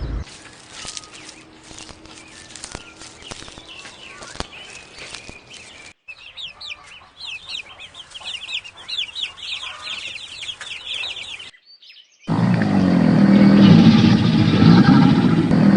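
Animal calls cut one after another. First comes chicken clucking among scattered clicks, then a rapid run of high, quick bird chirps. About twelve seconds in, a loud, deep animal roar starts.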